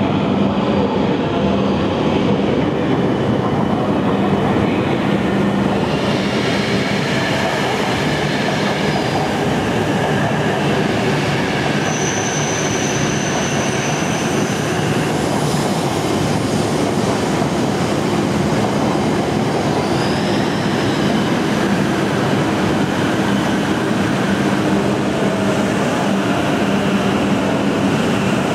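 Coupled E6 and H5 series Shinkansen trains running slowly past at close range, a steady rolling rumble and hum. Brief high wheel squeals come about twelve seconds in and again near twenty seconds.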